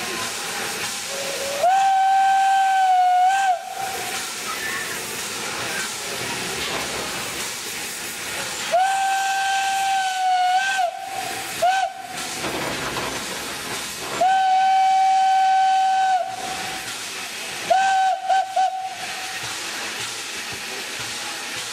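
Steam locomotive whistle of an armoured train, one steady pitch, blown in three long blasts of about two seconds each with a short toot after the second and a quick run of short toots near the end. Steam hisses steadily between the blasts.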